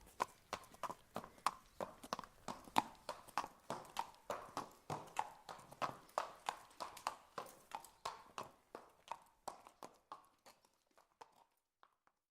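Horse's hooves clip-clopping on the ground at a walk: a steady rhythm of sharp hoof strikes, about three to four a second, fading away over the last couple of seconds.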